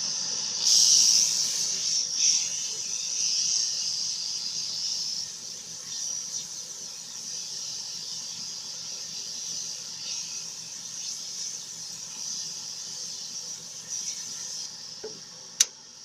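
Small improvised electric sanding machine running steadily, its motor humming under a high sanding hiss as a small ball of shrub material is sanded smooth for a bird call. The hiss is strongest in the first couple of seconds, and there is one sharp click near the end.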